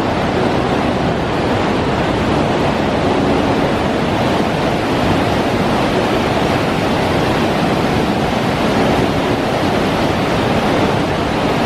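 Naena Falls roaring: a loud, steady rush of falling water.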